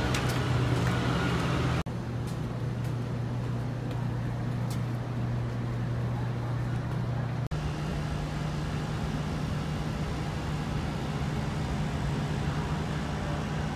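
Outdoor city noise carried by a steady low mechanical hum. The hum jumps abruptly in pitch and level twice, about two seconds in and again about halfway through.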